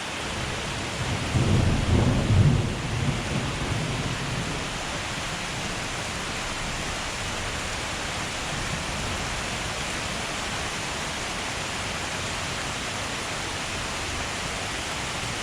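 Steady heavy rain, with a low rumble of thunder swelling up between about one and three seconds in.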